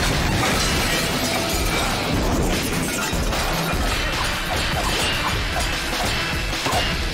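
Dramatic title theme music with sound-effect impacts laid over it: metal knife blades striking a steel wall, with crashes and whooshes.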